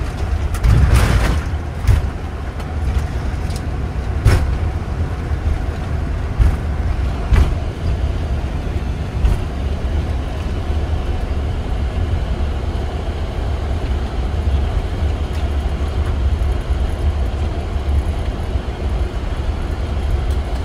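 Boeing 747-8 Freighter touching down, heard from the cockpit: a loud rush and thump about a second in, then the steady low rumble of the landing roll with a few sharp thumps as the wheels run over the runway.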